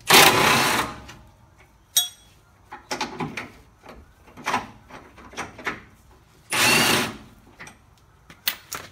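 Cordless Milwaukee Fuel power tool running in two short bursts, one right at the start and one about two-thirds in, backing out the through bolts of a truck's transmission crossmember, with light clicks of tool and socket handling between.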